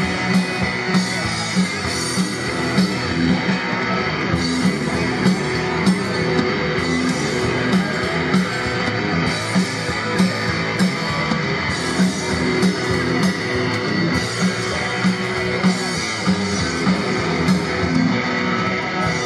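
Live rock band playing with electric guitars, bass guitar and a drum kit, keeping a steady beat.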